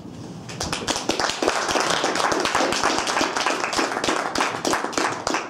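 A small group of people clapping, the separate claps distinct, starting about half a second in and carrying on steadily.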